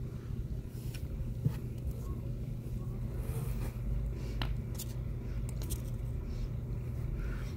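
Light scratching and a few sharp ticks from kittens' claws on a cardboard box and blankets, over a steady low rumble.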